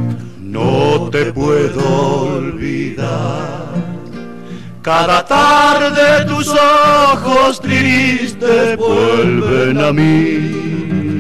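Male folk vocal group singing in harmony over strummed acoustic guitars, the voices swelling into long held notes with vibrato about five seconds in.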